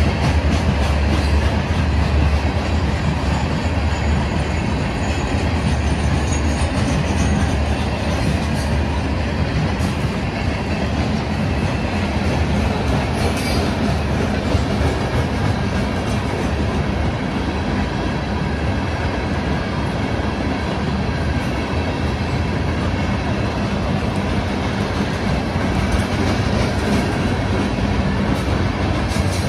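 Loaded ore cars of a freight train rolling past: a steady rumble of steel wheels on the rails with wheel clatter, heaviest in the low end and unchanged throughout.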